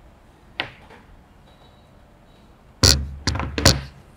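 A light click about half a second in, then a quick cluster of four or five dull thunks and knocks about three seconds in, like objects being handled or set down on a table.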